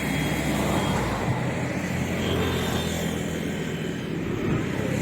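Road traffic passing close by: steady engine and tyre noise of cars going over the bridge.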